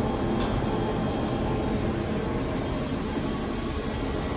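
Steady hum and hiss of industrial machinery running, with a low drone and a few faint steady tones.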